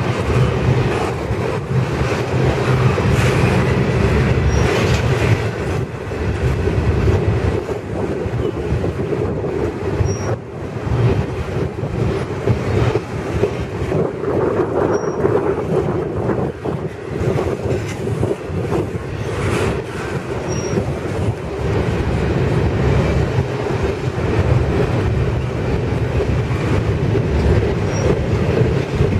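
Double-stack intermodal freight well cars rolling past: a steady rumble of steel wheels on rail with clacking over the rail joints and a few faint, brief high wheel squeaks.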